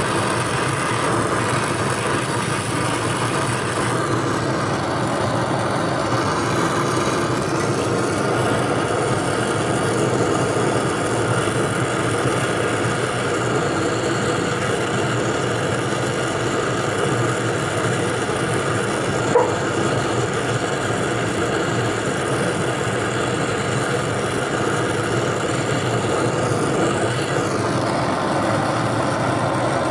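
A machine running with a steady motor hum and hiss, and a single short click about two-thirds of the way through.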